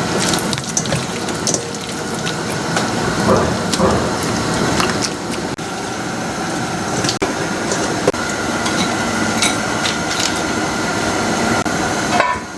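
Pot of doenjang soup with pork backbones and dried cabbage leaves boiling, with a steady bubbling and scattered light clicks of ladle or pot.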